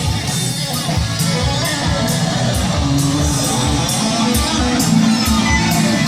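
Background rock music with strummed guitar and a steady beat.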